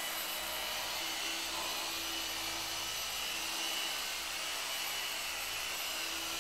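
Rupes dual-action orbital polisher running steadily with a red foam pad on car paint, compounding the clear coat. It makes an even whir with a steady high whine.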